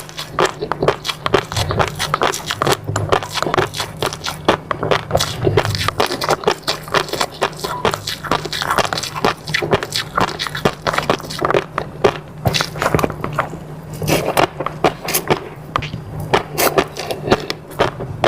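Close-miked eating sounds: a dense, irregular run of wet clicks, smacks and crackles of chewing, over a steady low hum.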